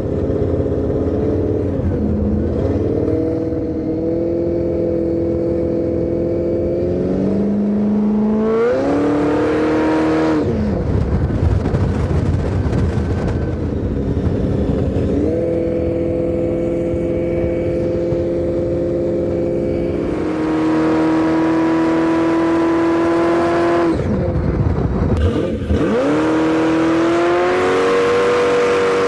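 Supercharged V8 engine of a custom trike running under load. Its note holds steady, then rises and drops several times as it revs, with a couple of rougher, noisier stretches.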